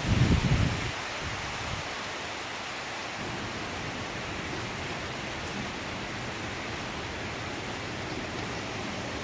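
Hurricane wind and wind-blown rain, a steady rushing hiss, with a loud low rumble of a gust hitting the microphone in the first second.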